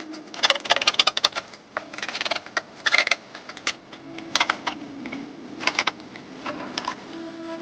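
Bursts of rapid clicking and tapping from hand tools being worked, in several separate clusters.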